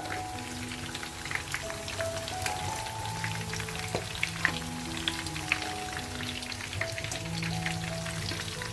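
Cartilage sausage frying in hot pork lard, sizzling steadily with scattered sharp crackles and pops. Background music plays with held notes.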